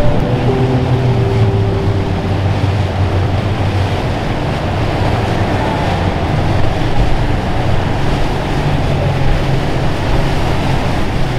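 Large flybridge motor yacht's engines running with a low hum as it cruises past, over the rush of its bow wake and wake water and wind on the microphone. The hum is strongest in the first couple of seconds.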